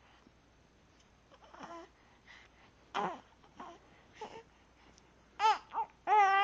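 A baby fussing: a few small whimpers and grunts, then louder high-pitched cries near the end.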